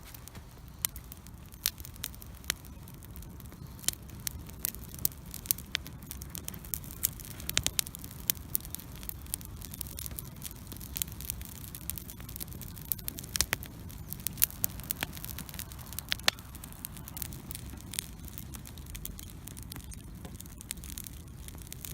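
Wood bonfire crackling: frequent sharp, irregular pops and snaps over the steady low rush of the flames.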